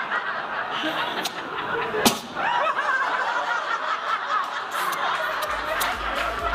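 Audience laughing at a stand-up joke, many voices snickering and chuckling together, with a single sharp smack about two seconds in. A low bass beat of music comes in near the end.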